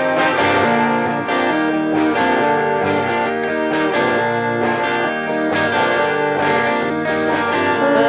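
Indie rock music: electric guitar chords with bass, two versions of the same song layered in different keys and tempos, so the parts clash.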